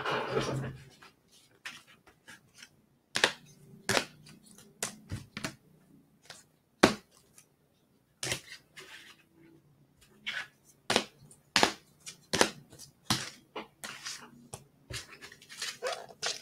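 Irregular clicks, snaps and crinkles of a plastic cello pack wrapper and baseball trading cards being handled, with a longer crinkling rustle at the start.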